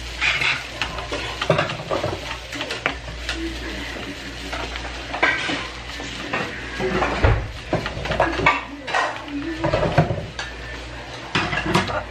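A wooden spatula scraping and knocking against a frying pan in irregular strokes as kimchi fried rice is stir-fried, with a light sizzle underneath.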